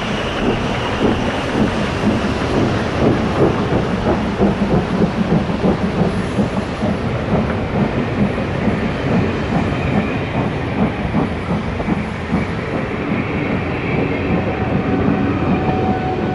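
A rake of Mk2 passenger carriages rolling past close by at speed, the wheels clattering and clicking steadily over the rails.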